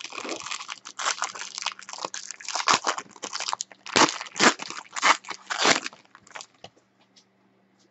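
Gold foil trading-card pack wrapper being torn open and crinkled by hand: a run of crackling rustles that thins to a few light clicks about six seconds in, then goes quiet.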